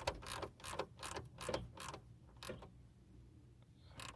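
Ratcheting wrench clicking in short bursts as it is swung back and forth on a bolt, about eight strokes in the first two and a half seconds, then mostly stopping.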